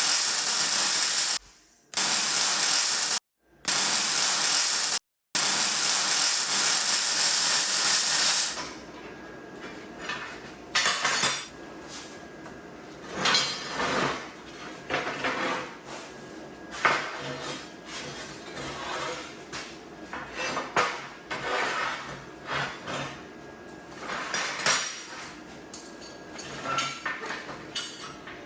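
Four cut-together bursts of a loud, steady hiss from a metalworking job, then quieter light metallic clinks and clatter of metal parts being handled.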